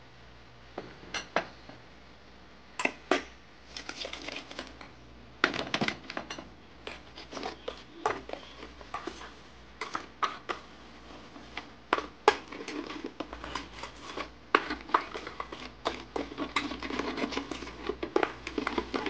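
A metal spoon clinking and scraping against a bowl while a sticky mixture is stirred. There are scattered clicks at first, and the scraping becomes quick and nearly continuous in the second half.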